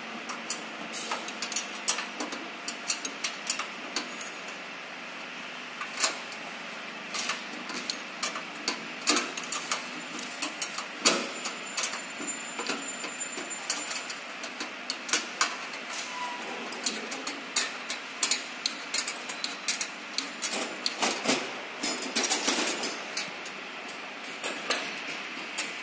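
Irregular metallic clicks, clinks and knocks of a hand tool and roller chain being worked onto the sprockets of a reaper header's chain drive, over a steady background hiss. The clicks come in clusters, thickest in the second half.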